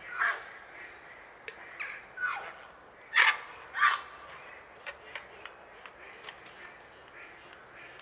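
Grey heron giving harsh, croaking calls, about five in the first four seconds, the loudest about three seconds in, followed by a run of short, sharp clicks.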